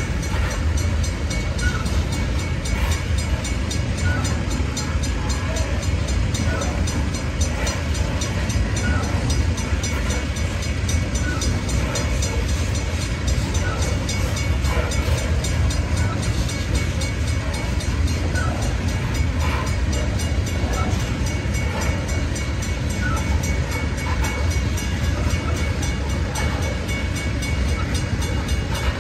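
Loaded coal hopper cars rolling past on the rails, a steady low rumble of wheels and cars with a faint, steady high tone running through it.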